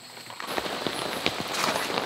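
Steady rain falling on a camping tarp and the gravel ground, many small drop hits, setting in about half a second in.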